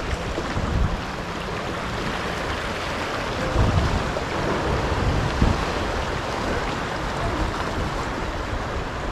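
Steady hiss of rain falling, with wind gusting across the microphone in low rumbles, strongest a few seconds in.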